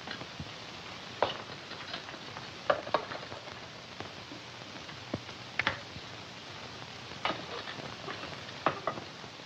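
Steady hiss of an old film soundtrack with about a dozen faint, scattered clicks and knocks as hands work at a barred jail-cell door.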